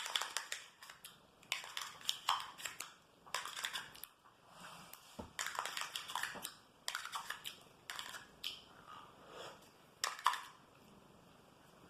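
A person eating yogurt up close: a quick, irregular run of small clicks, scrapes and mouth sounds that stops about ten and a half seconds in.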